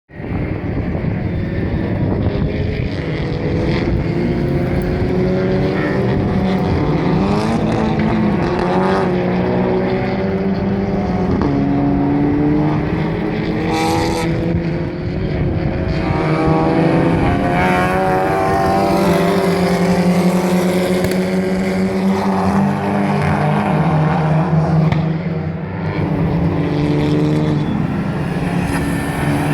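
TCR touring cars running at racing speed, several engines overlapping and rising and falling in pitch through gear changes. Now and then a sharp crack of an exhaust misfire, the loudest about halfway through.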